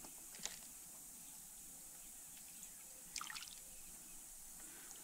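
Faint small splashes of a hooked channel catfish at the water's surface, against near quiet: one short tick about half a second in and a quick flurry of splashes around three seconds in.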